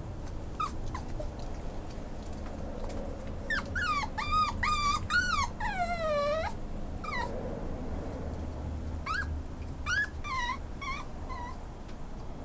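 Schnauzer puppy whimpering: a run of high, wavering whines starting about three and a half seconds in, the last one sliding down in pitch, then a few shorter whines a few seconds later.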